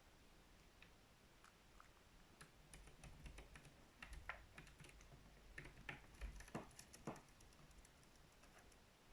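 Faint, irregular small clicks and crunches of a pet eating, thickest in the middle seconds.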